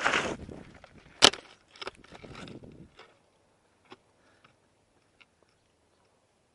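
Airsoft electric rifle (DBoy SCAR L AEG) firing one sharp shot about a second in, between stretches of scuffing noise, followed by a few fainter clicks.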